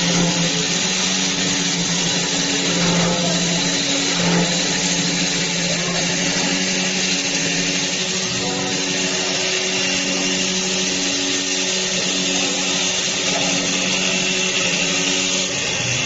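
CNC wood lathe running, turning a wooden workpiece: a steady motor hum under a continuous hiss of cutting.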